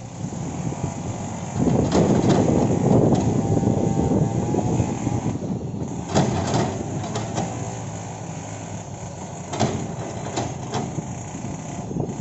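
Kobelco hydraulic excavator working: engine and hydraulics running hard, louder for a few seconds near the start, with several sharp clanks from about halfway on.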